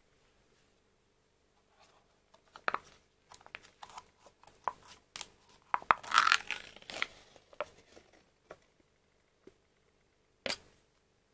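Foil lid on a plastic yogurt cup crinkling under the fingers and then peeled back, with a loud tearing rip about six seconds in. A single sharp tick near the end.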